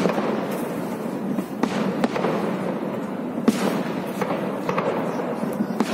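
Aerial firework shells bursting: a continuous crackle of many small bangs, with a sharper bang about three and a half seconds in.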